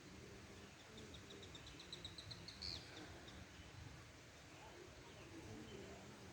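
A bird calling: a quick run of short, high notes that speeds up and ends in one louder note, faint against quiet outdoor background.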